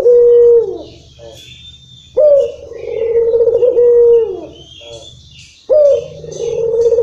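Barbary dove (puter) cooing in long drawn-out phrases about every three and a half seconds. Each phrase opens on a sharp higher note, holds a long wavering coo and drops away at the end. This is the long-cadence coo (irama panjang) that keepers prize. Small birds chirp faintly in the background.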